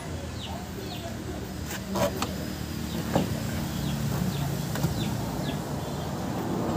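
A brake disc is slid back onto a front wheel hub and its studs, giving a few light metal clinks and knocks about two and three seconds in, over a low steady hum.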